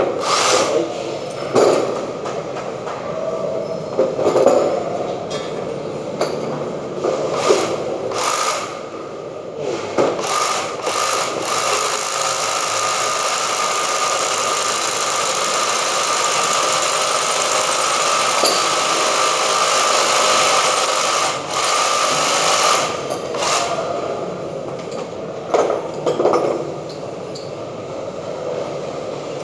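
Handheld electric drill boring into a wall: several short bursts, then one long steady run of about ten seconds, then a few more short bursts.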